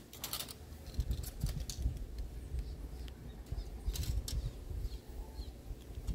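A steel tape measure being pulled out and held against a wall: uneven handling rumble and knocks, with a few light clicks from the tape.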